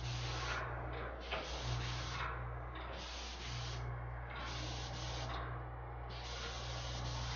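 Handheld paint spray gun hissing as enamel is sprayed onto wall trim, in several short passes with brief breaks as the trigger is released. A steady low hum runs underneath.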